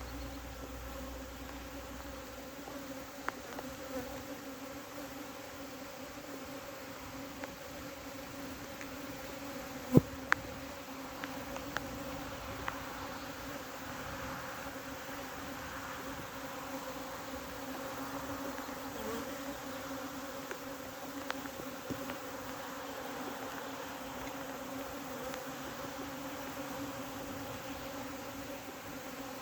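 A honeybee colony buzzing in a steady hum around an opened hive during a frame inspection. The bees are agitated, which the keeper puts down to the rain. A few sharp knocks cut through the hum, the loudest about ten seconds in.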